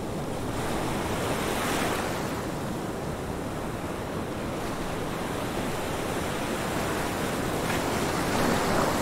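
Ocean waves washing in a steady rush of surf, swelling about two seconds in and again near the end.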